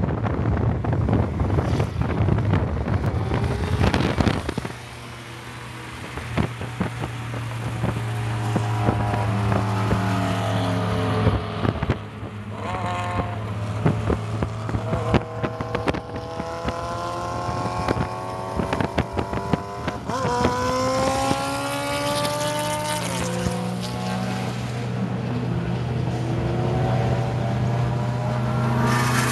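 Road and wind rush as vehicles pass, then the steady hum of a moving car. Over it, racing engines rev hard, their pitch climbing and dropping back several times.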